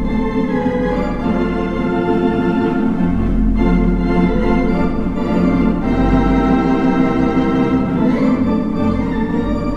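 Organ music with sustained chords that change every second or so.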